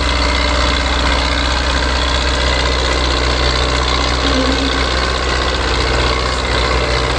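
Diesel engines of a Belarus 510 tractor and a Ford 6610 tractor running steadily and hard while the two tractors, hitched together, pull against each other in a tug-of-war.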